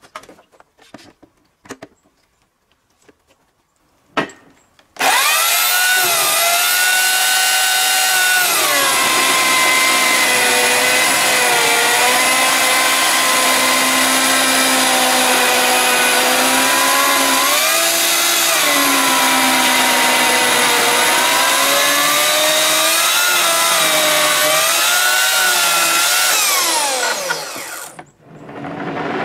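Oregon CS1500 electric chainsaw cutting through a log on an overhead chainsaw mill. It starts suddenly about five seconds in and runs with a steady high motor whine whose pitch dips and recovers several times during the cut, then falls in pitch and winds down near the end. A few faint clicks come before it starts.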